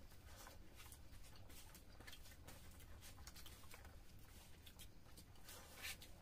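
Faint eating sounds of two people eating rice and fish by hand: small mouth clicks and chewing noises scattered throughout, one a little louder near the end, over a steady low hum.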